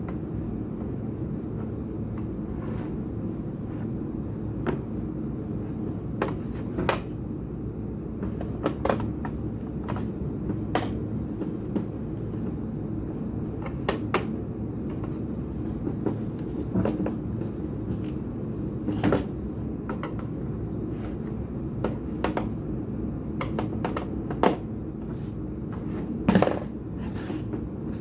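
Scattered short clicks and knocks of tools and metal parts being handled during hand assembly of a carpet machine's replacement motor, over a steady low hum. The knocks come irregularly, the loudest a little over halfway through and near the end.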